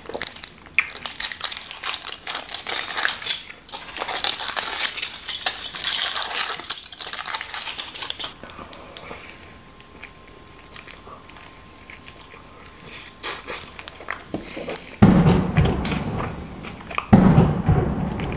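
Aluminium foil crinkling and tearing as it is peeled back from a dürüm wrap for about eight seconds, followed by quieter chewing. Near the end come two loud, dull thumps, a couple of seconds apart.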